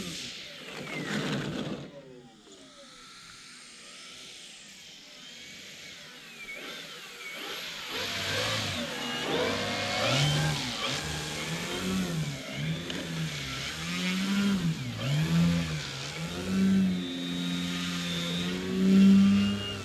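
Brushless electric motor and 16x7 propeller of a large RC ski plane, throttled up and down as it taxis on snow. The pitch swings up and down in repeated swells, after a falling whine in the first couple of seconds, and holds steadier near the end.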